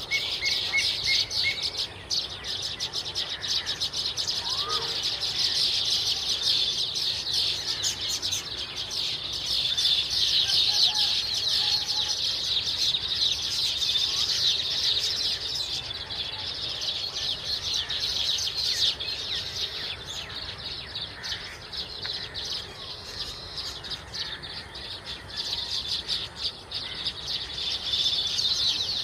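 A flock of baya weavers chattering together: a dense chorus of many overlapping high chirps that goes on without a break.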